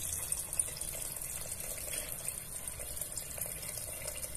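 Water pouring in a steady stream from a jug into an aluminium pressure cooker, splashing into the broth of the beef ribs as the pot is filled.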